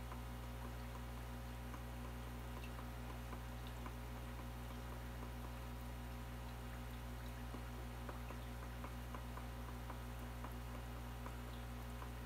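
Aquarium with a sponge filter running: a steady low hum with faint scattered ticks and drips.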